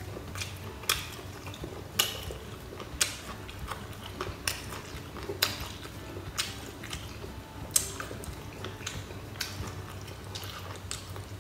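Someone eating a crunchy roll with grilled rice cracker: sharp crunches and chewing about once a second over a low steady background.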